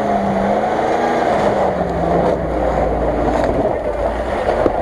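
Land Rover Discovery's engine running steadily as the SUV drives slowly through deep mud.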